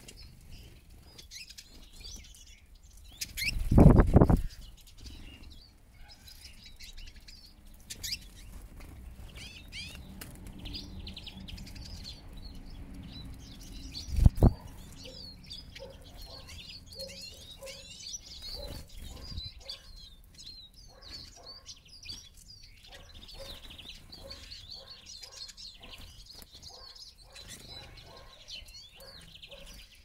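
A flock of Eurasian siskins twittering in quick, high chirps throughout, with wing flutters as birds land and take off. Two loud low rumbles stand out, one about a second long about four seconds in and a short one about fourteen seconds in.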